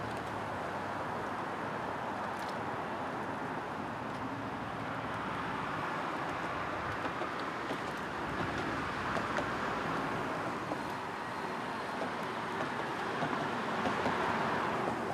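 A large pack of road bicycles riding past: a steady whir of many tyres on the road surface with faint freewheel ticks, swelling a little in the second half.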